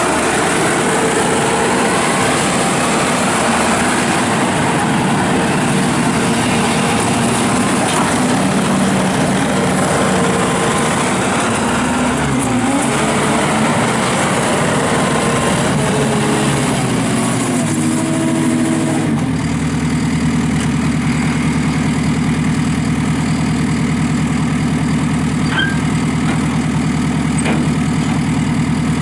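JCB 260T Eco tracked skid steer's diesel engine running with its pitch shifting up and down, then settling into a steady idle about two-thirds of the way through.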